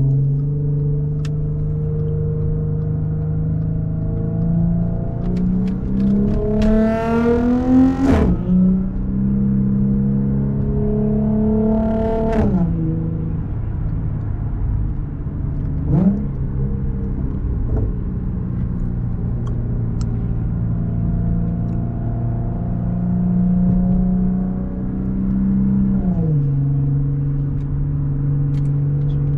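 Audi S4's supercharged 3.0-litre V6 through an AWE Touring exhaust, heard from inside the car while driving: it cruises steadily, rises in pitch under acceleration from about five to eight seconds in, then drops at an upshift. Further pitch drops come about twelve seconds in and near the end, with a short sharp blip about sixteen seconds in.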